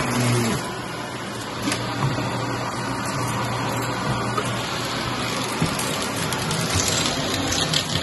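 Shark upright vacuum cleaner running steadily, a loud even rush of suction as the wand sweeps over carpet. Its low motor hum shifts and drops slightly about half a second in.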